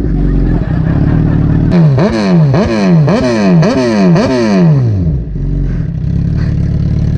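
Suzuki GSX-R1000 inline-four idling through an Arrow aftermarket exhaust, then revved in a quick run of about six throttle blips, each rise dropping straight back, before settling back to a steady idle.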